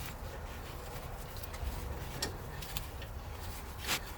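Faint scattered clicks of lug nuts being spun on and snugged onto the wheel studs with a hand lug wrench, a few irregular ticks with a slightly louder one near the end.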